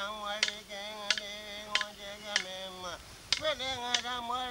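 A man singing a Tiwi Kulama song in long, wavering held notes, beating time with a wooden stick: a sharp click about every two-thirds of a second under the voice.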